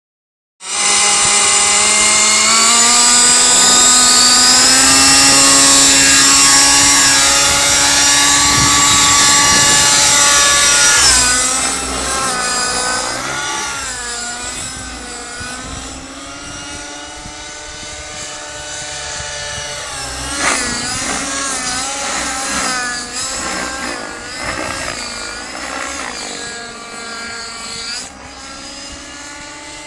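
Two-stroke nitro engine and rotor of an Align T-Rex 600 Nitro radio-controlled helicopter running, a loud high whine whose pitch climbs slightly in the first few seconds. After about eleven seconds it is farther off and quieter, its pitch rising and falling as the helicopter flies.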